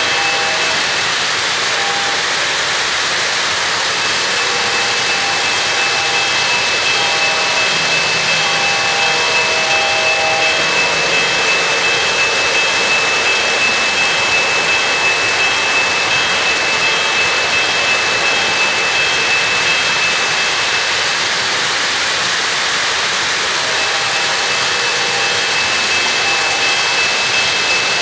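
O-gauge model trains running on three-rail track: a steady rushing rumble of metal wheels rolling on tubular rail, with a thin high whine held through most of it.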